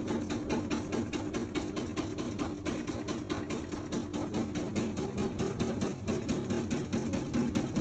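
Jiangsu Yawei HPE 3047 all-electric CNC turret punch press running a punching job, striking in a fast even rhythm of about six hits a second over a steady hum.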